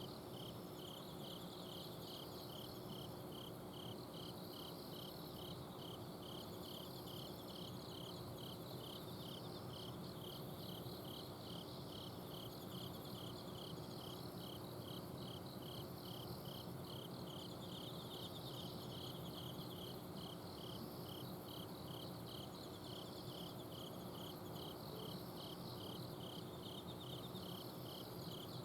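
Night chorus of autumn insects, several kinds of crickets calling together: one chirps steadily about two to three times a second while others trill in repeated phrases. Under them runs the steady hum of an air conditioner's outdoor unit.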